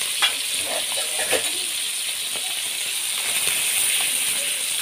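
Tilapia frying in hot oil in a pan: a steady sizzle with a couple of sharp crackles, one just after the start and one about a second later.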